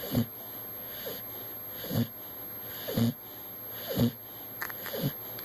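Pit bull snoring in its sleep: five short, low snorts, about one a second.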